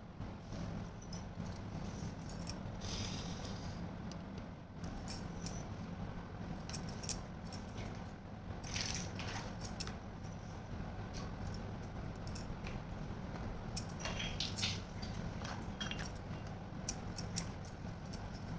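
Small plastic toy pieces being handled: scattered light clicks and taps with a few brief rustles, over a steady low hum.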